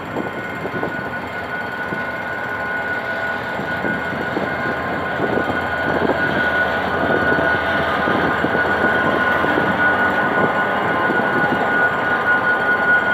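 GM GT22CW-2 diesel-electric locomotive pulling a passenger train away from the station, its engine working hard and growing louder as it passes close by, with the wheels knocking over the rails as the coaches follow. A steady high-pitched tone sounds over it.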